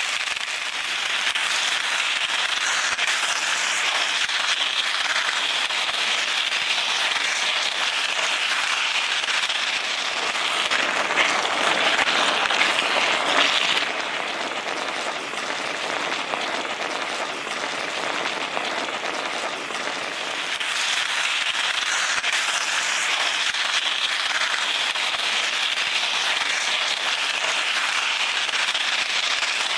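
Food sizzling and crackling in a hot pan as it cooks, a dense steady crackle that gets louder for a few seconds near the middle.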